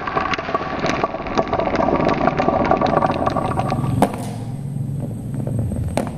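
Marbles rolling and clacking down a HABA wooden wave-shaped marble run, a rapid patter of clicks over a rolling rumble. It stops abruptly about four seconds in, leaving a low hum with a single click near the end.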